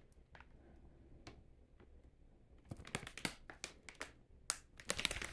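Scattered light clicks and taps of hands handling the motherboard box and its packaging. The clicks are sparse at first and come thick and fast from about halfway through.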